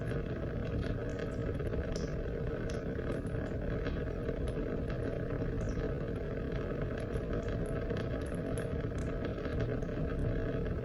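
Steady rain: a continuous low rush of falling water, with scattered sharp ticks of single drops striking.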